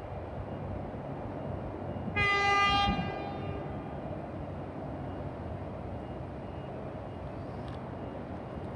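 Horn of an approaching Sydney C set electric train giving one short, single-note blast of under a second, about two seconds in, over a steady low rumble.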